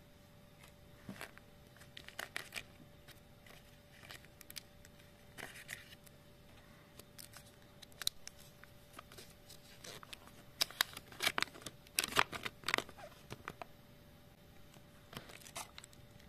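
Crinkling and tearing of a small plastic-and-paper wrapper handled and opened by hand, a run of short crackles that is busiest about ten to thirteen seconds in.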